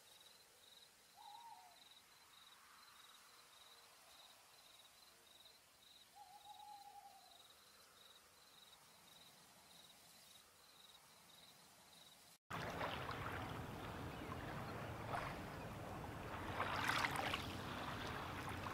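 Night nature ambience: crickets chirping in a steady high pulse, with two short hoots about a second and six seconds in. About twelve seconds in it cuts abruptly to a much louder rushing of water, waves or a stream, which swells near the end.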